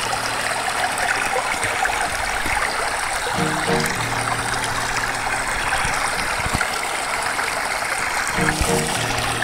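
Small stream rushing steadily, a constant even wash of water noise. Faint low background music repeats underneath every few seconds.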